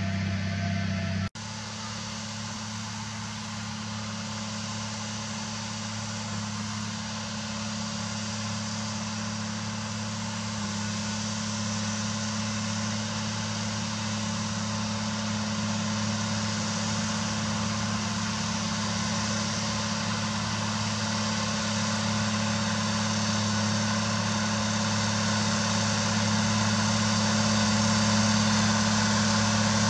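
Zetor Crystal tractor's diesel engine running steadily under load as it pulls a subsoiler through the ground, growing slowly louder as it draws nearer. The sound cuts off briefly about a second in.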